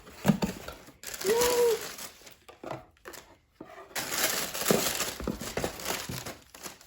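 Paper or plastic packaging crinkling and rustling as it is handled, in several bursts with short pauses between them. A brief tone that rises and falls sounds about a second and a half in.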